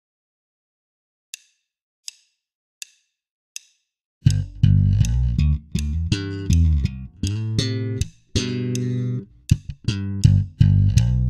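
Four evenly spaced count-in clicks at 80 beats a minute, then, from about four seconds in, a slapped Fender electric bass playing a sixteenth-note funk line with drums.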